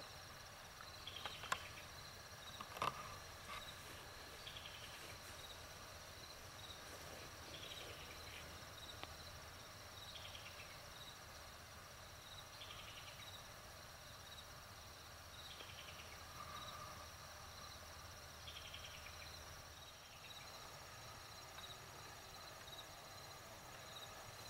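Faint chorus of crickets and other insects: a steady high trill with even pulses, and a falling raspy chirp that repeats every three seconds or so. Two sharp clicks come about one and a half and three seconds in.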